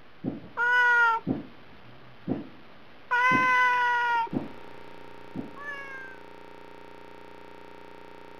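Domestic cat meowing to be fed: two long meows, then a short, fainter one about six seconds in, with a few soft thumps between them.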